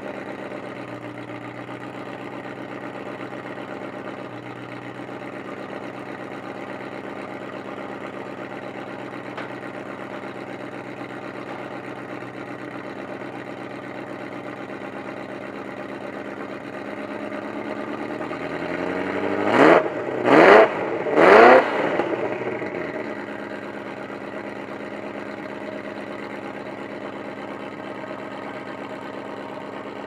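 Ferrari F40's twin-turbo V8 idling steadily just after being started, then revved in three quick, loud blips about twenty seconds in before dropping back to idle. The uploader suspects the exhaust is not stock.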